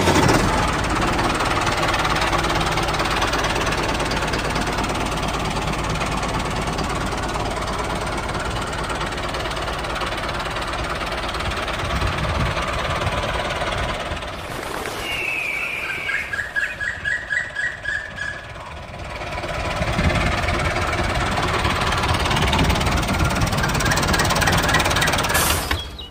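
Engine running steadily. About fifteen seconds in it fades for a few seconds, with a short falling high chirp and a rapid string of high pulses, then comes back at full level.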